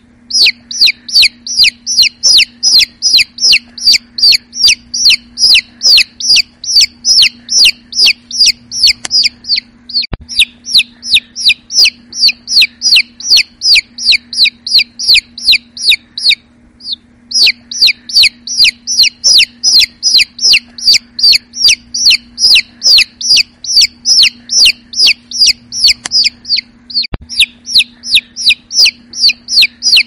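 A young domestic chicken chick peeping: a fast, steady run of short, high, falling peeps, about three a second, with a break of about a second roughly halfway through.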